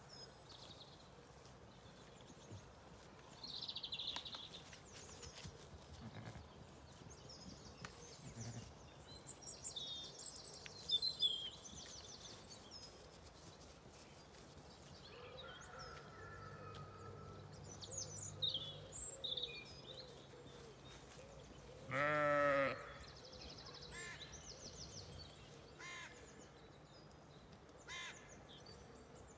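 A Zwartbles sheep bleats once, a single wavering bleat about two-thirds of the way through. Small birds chirp and trill on and off in the background.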